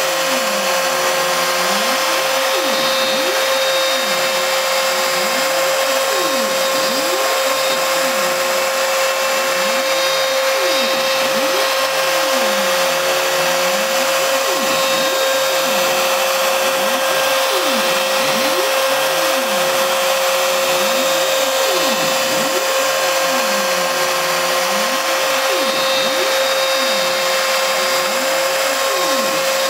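CNC wood router with a rotary-tool spindle cutting an S into a pine block: a steady high whine over the hiss of the bit cutting wood, with lower tones sweeping up and down about every two seconds.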